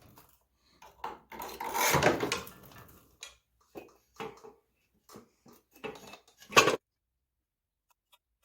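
Metal tools and parts clinking and scraping as they are handled, with a longer scrape about two seconds in and a sharp clank near the end.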